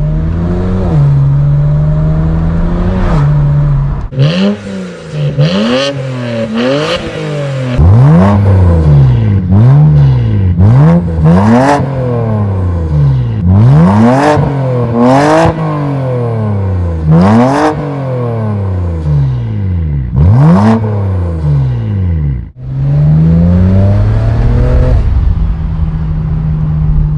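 BMW 335i's twin-turbo N54 inline-six through a new full exhaust, holding a steady drone, then revved in about a dozen quick blips, each climbing and falling in about a second, with sharp pops between them, before settling back to a steady drone.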